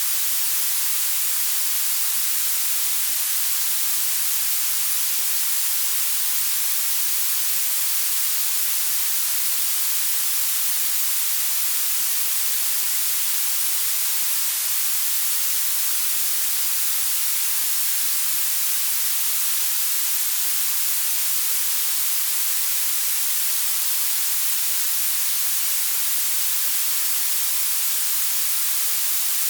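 Synthesized blue noise: a steady, unchanging hiss weighted toward the high end, bright and thin with almost no bass.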